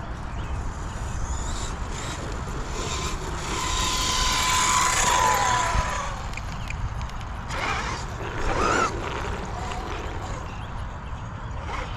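Electric RC car running: a high motor whine holds steady, then falls away, with a louder hiss of tyres and gravel. A second short rising whine follows near the middle. Wind noise rumbles underneath.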